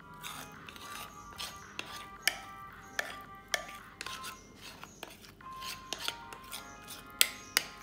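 A utensil scraping and knocking against a mixing bowl as thick banana bread batter is scraped out into a loaf pan: a string of irregular sharp clicks and scrapes, the loudest near the end. Background music with held notes plays underneath.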